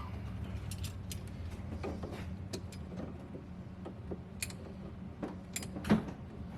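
Scattered light clicks and knocks from kitchen cabinet demolition work, over a steady low hum, with one sharper knock near the end.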